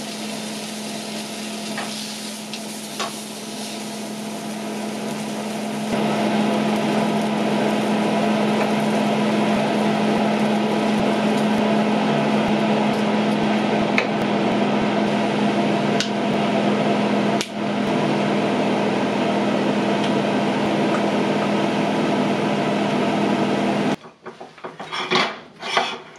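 Hot oil sizzling steadily in a skillet as chicken breasts fry, louder from about six seconds in, with a few sharp clicks of metal tongs. Near the end the sizzle cuts off suddenly and a short clatter of plates follows.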